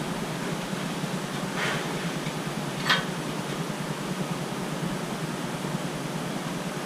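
Steady fan-like hiss and hum, with two light clicks a little over a second apart, the second sharper: engine main bearing shells being handled and set in place.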